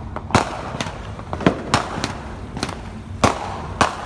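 Fireworks going off: sharp bangs at irregular intervals, about eight in four seconds, some louder than others, over a steady low rumble.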